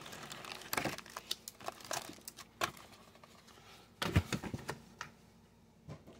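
Foil-wrapped Upper Deck hockey card packs crinkling and clicking as they are handled and stacked on a table, with a duller knock about four seconds in.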